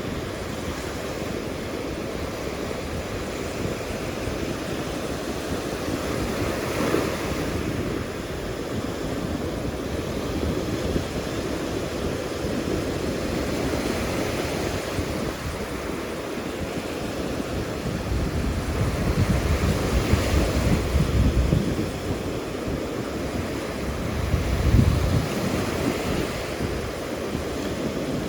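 Ocean surf breaking and washing up the beach, swelling and fading every several seconds. Wind buffets the microphone in gusts during the second half.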